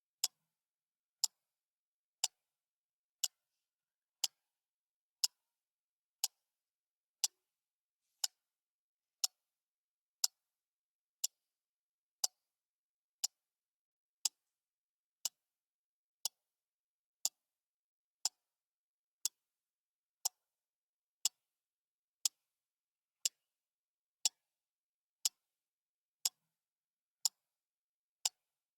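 Clock ticking steadily, one short, crisp tick each second.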